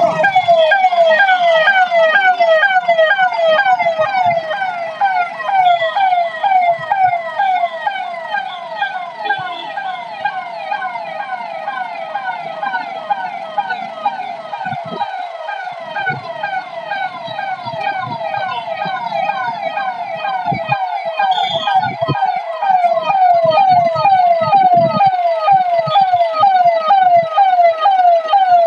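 Electronic siren sounding in quick, repeated falling sweeps, about two or three a second. It is softer through the middle and louder again near the end. It is sounded as a public alert for people to wear masks against COVID.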